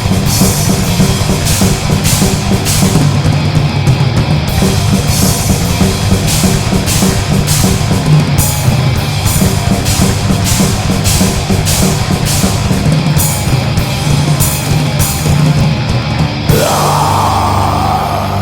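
Loud heavy metal music with distorted instruments and pounding drums and cymbals. About 16 seconds in, the drums drop out and a single held note rises in pitch and rings on as the song ends.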